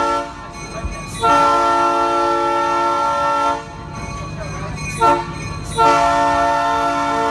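Train horn sounding a chord in a long blast, a short blast, then another long blast, the pattern of a grade-crossing signal, with the train's low rumble between the blasts.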